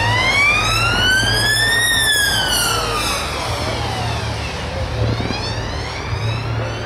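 Emergency vehicle siren wailing, its pitch sliding slowly up and down about every four seconds, over a steady low hum.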